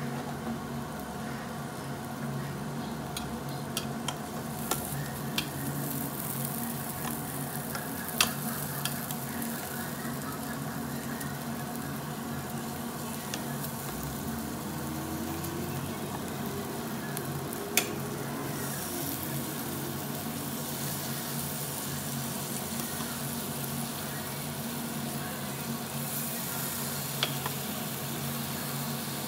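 Marinated duck meat sizzling steadily on a hot grill grate. A few sharp clicks of metal tongs and chopsticks against the grate and meat stand out, the loudest two about 8 and 18 seconds in.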